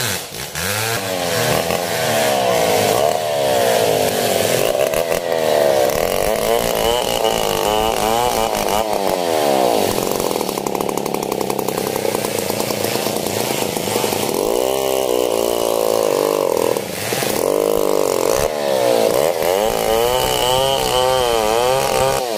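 Two-stroke chainsaw cutting into a coconut palm trunk, its engine pitch rising and falling as the throttle is worked and the bar bites into the wood. It eases briefly about 17 seconds in.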